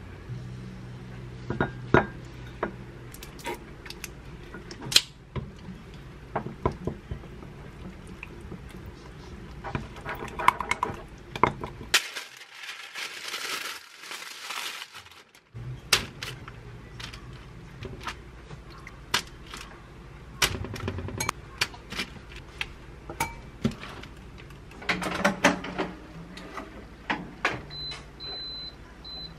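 A wooden spoon clinks and scrapes against a glass mug as a thick sauce is stirred, with sharp taps. Paper rustles around the middle as parchment is pressed into a metal basket. Near the end a Zolele air fryer oven's control panel gives a few short high beeps as it is set.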